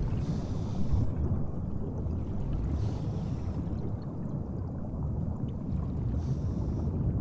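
Deep, steady underwater rumble, a dense low churning noise, with three short washes of high hiss: about a second in, around three seconds in, and about six seconds in.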